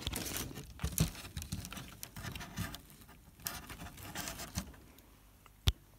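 Footsteps with rustling from clothing and handling of the handheld camera, in an irregular run of soft scuffs and clicks, with one sharp click near the end.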